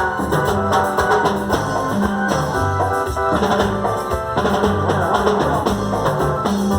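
Cumbia band playing: a steady bass line and percussion under dense melodic lines.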